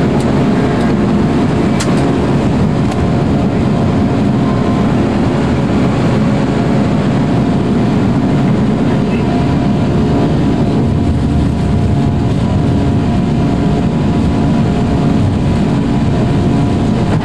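Flight-deck noise of an Airbus A340 at takeoff power as it lifts off and climbs out: a loud, steady rush of airflow and engine noise from its four CFM56 turbofans, with a faint click about two seconds in.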